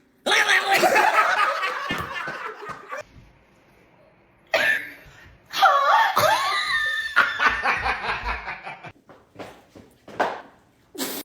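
People laughing: two long bouts of laughter with a short pause between them, then a few short bursts near the end.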